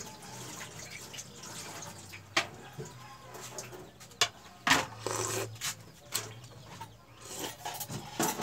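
Pot of clam soup boiling under its lid on a wood-fired stove, with scattered short clicks and pops; a denser cluster comes about five seconds in.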